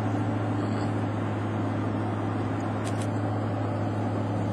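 Steady drone of a car driving along a highway, heard from inside the cabin: a low engine and road hum under even tyre noise. A faint click about three seconds in.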